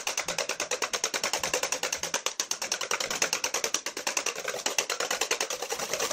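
Wire balloon whisk beating egg whites by hand in a stainless steel bowl, a fast, even clatter of about ten strokes a second against the metal. The whites are being whipped to a meringue with half the sugar added.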